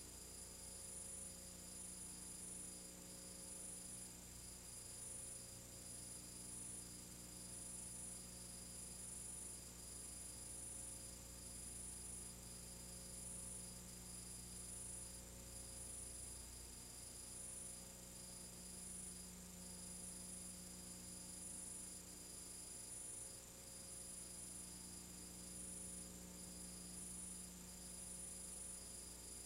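Faint steady electrical mains hum with a thin high buzz that flickers unevenly. This is the noise floor of a transfer of a silent film; there is no other sound.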